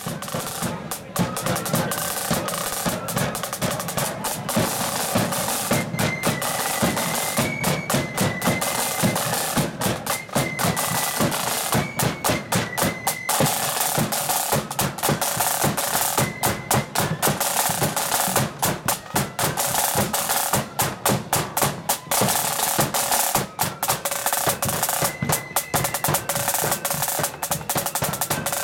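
Marching band drum corps playing: rope-tension snare (side) drums beating out fast rolls and rhythms over a bass drum.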